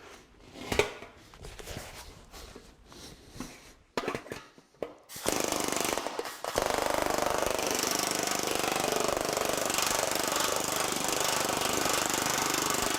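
TM Technologies pneumatic power hammer with shrinking dies hammering 20-gauge sheet steel in a rapid, steady stream of blows, starting about five seconds in after a few scattered knocks. The dies are trapping down a ruffle in the metal and shrinking it into itself.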